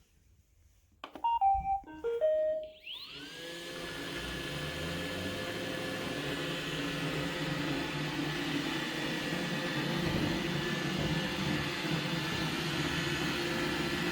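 iRobot Roomba 960 robot vacuum playing a short melody of beeps as it starts a cleaning run, then its vacuum motor spinning up with a rising whine and running steadily.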